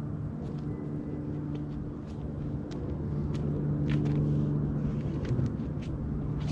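Steady low hum and rumble of a vehicle engine running nearby, with scattered light clicks as a scissor jack is set in place under the car.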